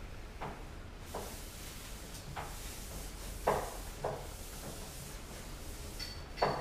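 Hand trigger spray bottle squirting liquid onto a car bonnet: about six short hissing squirts at uneven intervals, two of them louder, about halfway through and near the end.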